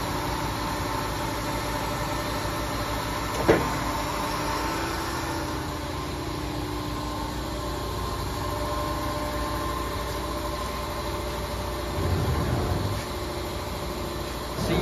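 Associated Pacific hydraulic die-cutting press running with a steady machine hum. A single sharp clack comes about three and a half seconds in, and a low rumble lasts about a second near the end.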